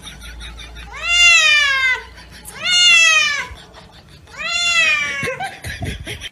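Cat meowing loudly three times while being washed in a sink, each long meow rising and then falling in pitch.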